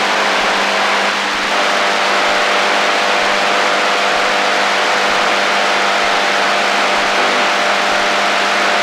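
AM radio static on the HF shortwave band: a steady loud hiss with a low hum and a few faint steady whistling tones from interfering carriers, with a brief dip about a second in.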